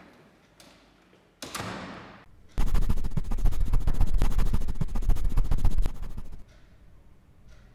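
A short whoosh, then about three seconds of loud, dense electric crackling, a sound effect for a chalk figure crackling with energy, that stops fairly suddenly.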